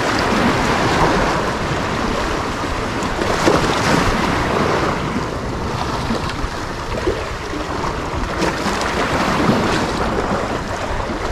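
Choppy sea waves washing and splashing against a rocky pier edge, with wind rumbling on the microphone.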